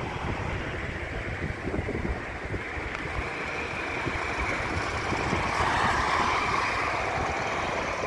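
Steady rushing road-traffic noise with wind buffeting the microphone, growing louder in the second half as a vehicle goes past.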